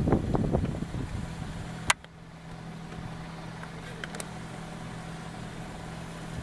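Wind buffeting the microphone, cut off by a sharp click about two seconds in; then a Suzuki Grand Vitara's engine idling with a low, steady hum as the SUV crawls down a steep rocky slope with one rear wheel off the ground.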